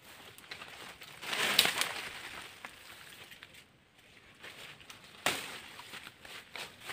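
Leafy branches and undergrowth rustling as they are pulled and pushed aside, loudest in a burst a little over a second in, with small twig cracks throughout and one sharp snap about five seconds in.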